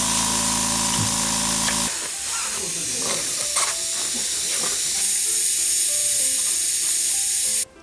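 Electric air compressor running with a steady hum that stops abruptly about two seconds in. A steady hiss of escaping compressed air follows during a tyre bead-seating attempt. The hiss grows louder about five seconds in and cuts off suddenly near the end.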